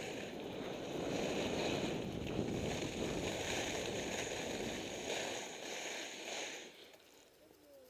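Rushing noise of downhill skiing: wind over the microphone and skis sliding on groomed snow. It dies away about seven seconds in as the skier slows to a stop.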